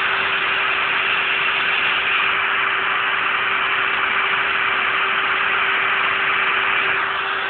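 Kress 1050 router spindle running a 2 mm end mill through 5 mm aluminium plate: a steady cutting hiss with a constant hum under it.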